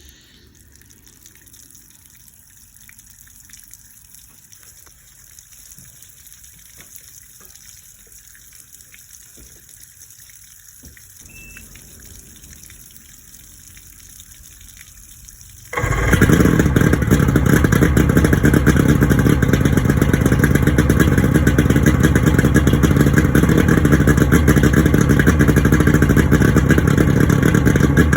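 A 23-year-old 90 hp Johnson outboard motor fires up suddenly about sixteen seconds in and keeps running steadily and loudly. Before that there are only a few faint clicks over a quiet hiss.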